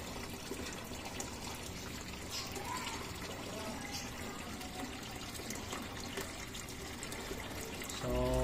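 Steady trickle of water in a turtle's aquarium tank. A short voice-like hum comes near the end.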